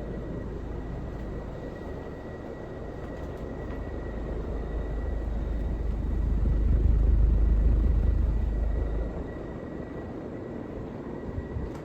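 1986 Casablanca Lady Delta 36-inch five-blade ceiling fan running at high speed, a steady rush of moving air with a faint high steady tone. A low rumble swells about halfway through and fades again a few seconds later.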